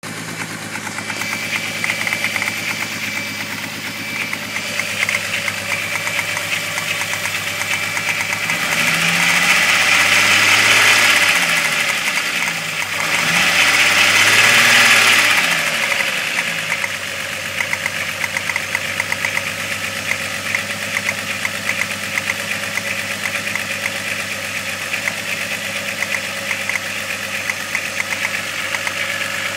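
12-valve VR6 engine idling with a rapid knocking tick, revved up and back down twice in the middle. The owner suspects the knock may be rod knock.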